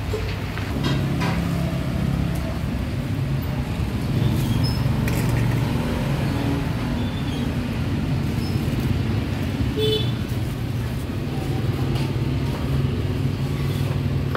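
Busy street ambience: a steady low rumble of passing traffic, with voices in the background and a few scattered clicks.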